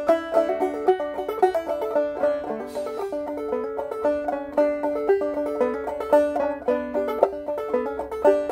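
Solo banjo picking a tune: a quick, steady run of bright plucked notes.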